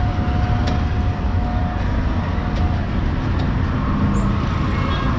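Busy street traffic: a steady low rumble of vehicle engines, with a few faint clicks.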